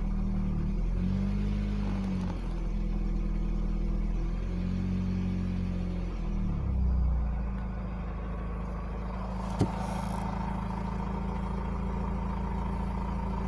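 Mitsubishi 4B11T turbocharged four-cylinder engine revved up and down by the throttle about three times, then settling back to a steady idle, with a single sharp click about ten seconds in. The engine has an unlocated knock that seems to go away when revved.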